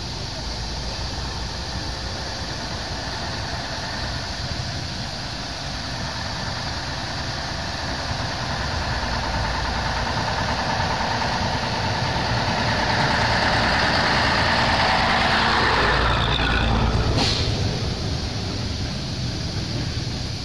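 Vintage double-decker bus's engine approaching and passing close by: it grows louder from about eight seconds in, peaks near sixteen seconds, then falls away, with a short sharp click just after the peak. Under it runs a steady low rumble from the steam traction engine rolling along the road.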